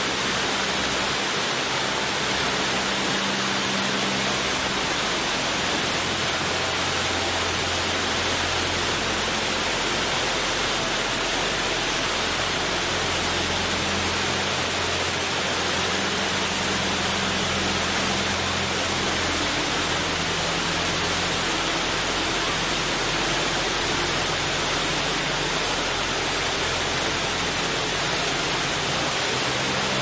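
Plaza water fountain splashing: a steady, continuous rush of falling water, with a low hum that comes and goes underneath.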